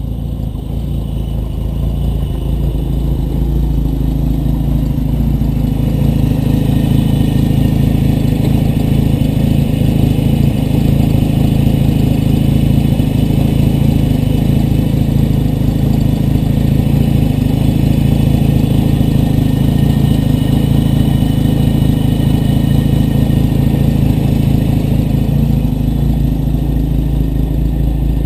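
A 1954 Dodge M37 Power Wagon's flathead inline-six idling steadily, warmed up after several minutes of running. It grows louder over the first few seconds as the open engine bay comes near, then holds an even note.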